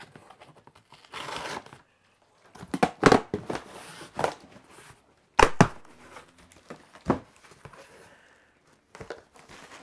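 Large cardboard shipping box being opened by hand: flaps pulled open and folded back with rustling and tearing of cardboard, broken by several sharp knocks, the loudest about three seconds in and a quick pair about halfway through.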